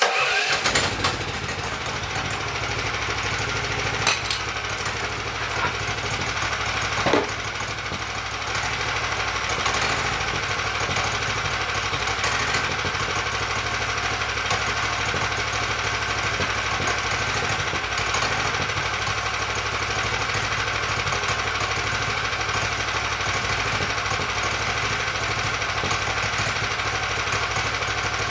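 The gas engine of a homemade bandsaw sawmill starts from cold and catches straight away. It then runs steadily, with a couple of brief louder knocks early on.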